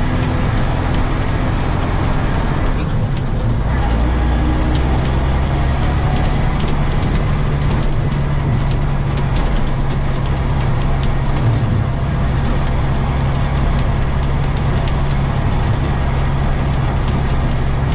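Heavy hauling truck driving on the road, heard from inside the cab: a steady engine drone and road noise, with the engine note changing about three seconds in.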